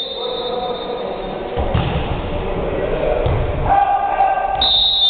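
Volleyball being played in an echoing gym: the ball is struck twice, two dull thumps about a second and a half apart, with players' voices calling out.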